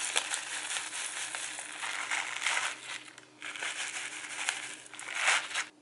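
Rolled oats poured from a crinkly plastic bag into a ceramic bowl: the bag crinkles and the dry oats rustle and patter into the bowl, with a short pause a little after three seconds in. The sound cuts off abruptly near the end.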